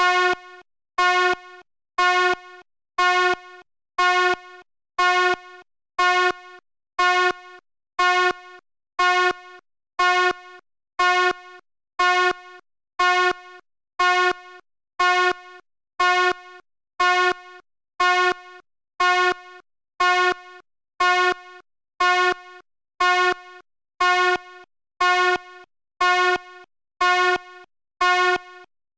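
Fire alarm horn sounding in short, evenly spaced blasts, about one every second, each with a brief fainter tail and a gap of silence before the next.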